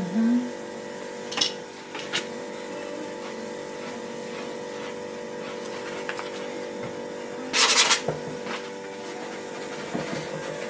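Palette knife working oil paint on a canvas: two light clicks a second or two in and one short, loud scrape later on, over a steady electrical hum.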